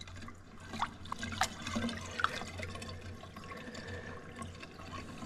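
Water sloshing and trickling in a sink as crappie fillets are handled in their soaking water, with a few small splashes.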